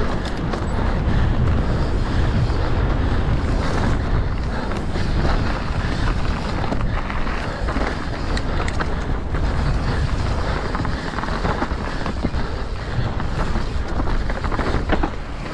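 Wind rushing over the microphone together with the rattle of a mountain bike riding fast down a rough enduro trail, with many sharp knocks from the wheels and frame.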